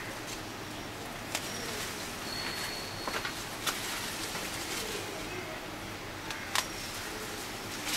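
Scissors snipping through red amaranth stems: a handful of sharp, short snips a second or two apart, over a steady background hiss.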